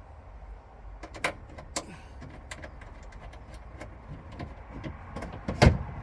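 Scattered clicks and light knocks of hand work on a car door's trim and fittings during reassembly, with one louder thump about five and a half seconds in.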